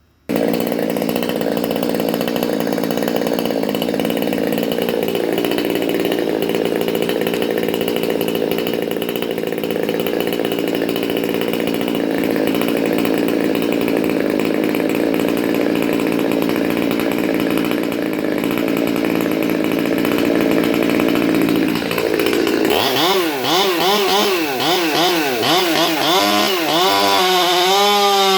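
Rebuilt Stihl MS 200 T two-stroke top-handle chainsaw with a chisel-ground chain, cutting wood under load at full throttle for about twenty seconds. Near the end it comes free of the cut and revs up and down before holding at high revs.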